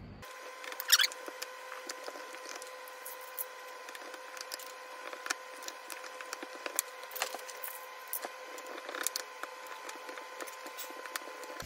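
Dental floss sawing through the double-sided foam adhesive behind a car's plastic tailgate lettering: an irregular run of small scratches and crackles, sharpest about a second in, over a faint steady hum.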